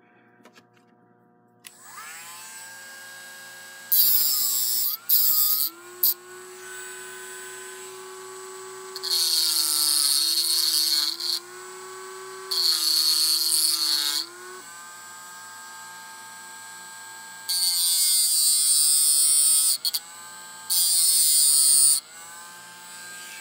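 A small electric power tool's motor spins up to a steady whine, then grinds metal off a slot-car pancake armature in about five loud hissing passes of one to two and a half seconds each. The whine's pitch sags under load during some of the cuts. The grinding takes off weight to bring the armature into dynamic balance.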